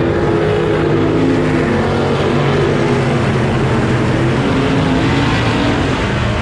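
Several race car engines running together, their pitches wavering up and down as they overlap.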